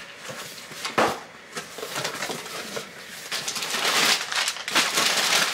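A package being opened by hand: a sharp snap about a second in, then rustling and crinkling of packaging that grows denser and louder in the second half.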